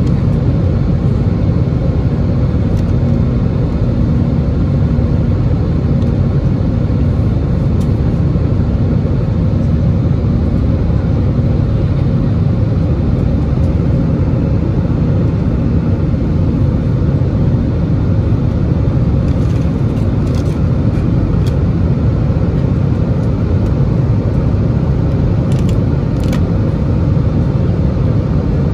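Steady cabin noise of an Airbus A320-216 in flight, heard from a window seat over the wing. It is a deep rumble of the CFM56 engines and rushing air, with a faint steady hum that fades out about halfway through.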